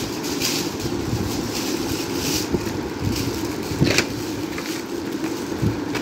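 Crinkling of foil gift wrap and handling of a cardboard toy box, in short crackly bursts with one sharp click about four seconds in, over a steady background hum.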